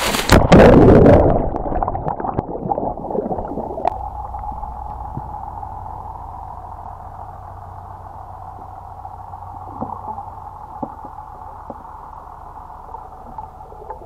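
A diver splashes into the sea. Then comes the muffled sound heard underwater: a steady drone with a few faint bubbling pops.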